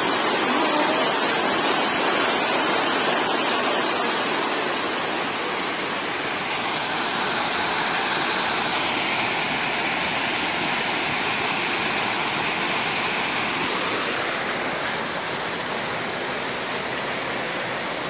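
Waterfall rushing steadily over boulders and splashing into a rock pool, a little softer after about six seconds.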